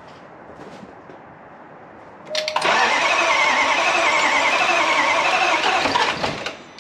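Starter motor cranking a freshly rebuilt 5.0-litre V8 in a Range Rover Sport for about four seconds, starting a couple of seconds in. It makes a whine that wavers up and down with each compression stroke, then stops without the engine catching.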